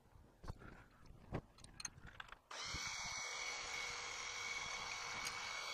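A few faint clicks and knocks, then about two and a half seconds in a steady machine whir with a high whine starts abruptly and runs until just before the end, where it stops.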